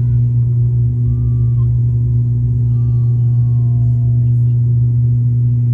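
Cabin drone of an ATR 72 turboprop at takeoff power, heard from a seat beside the propeller. It is a steady, loud, low propeller hum with a rumble underneath.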